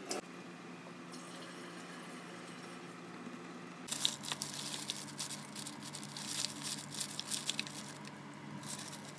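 Paper flour bag crinkling and rustling as flour is poured from it into a plastic tub, a dense crackle that starts about four seconds in and comes in uneven bursts.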